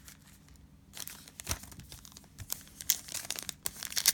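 Cellophane card-pack wrapper crinkling and trading cards being handled. The first second is quiet, then come scattered crinkles and light taps that grow busier toward the end.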